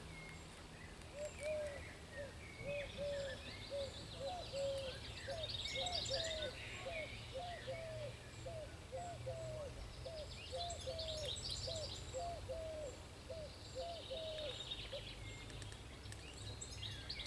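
Wild birds singing: one bird repeats a low, hooting note about twice a second for most of the stretch, while other songbirds chirp higher phrases over it.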